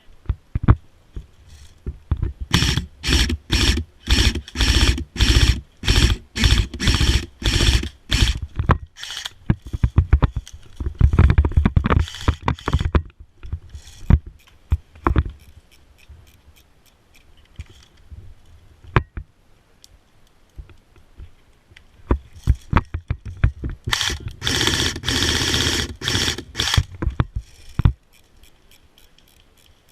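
Scraping and rustling against the microphone, in rows of short strokes about two a second, with a longer stretch of continuous scraping near the end.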